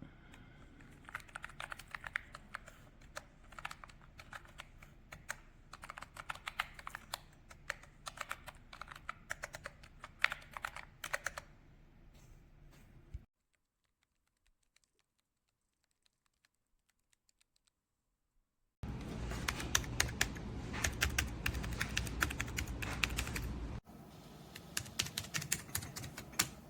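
Typing on a wireless numeric keypad with round keycaps: quick runs of key clicks. The clicking stops for about five seconds in the middle, then resumes louder and faster.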